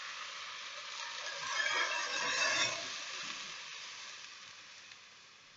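Milk poured into a very hot pan of ghee-browned vermicelli, sizzling and hissing; the sizzle swells about two seconds in, then slowly fades.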